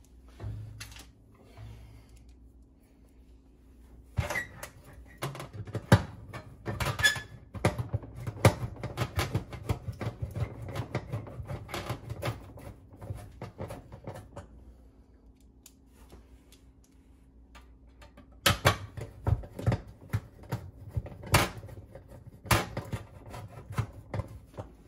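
Scattered metallic clicks, taps and rattles of a hand tool and screws as an electric oven's bake element is screwed back onto its mounting bracket inside the metal oven cavity. They are busiest in the middle, then come as a few sharp clicks near the end.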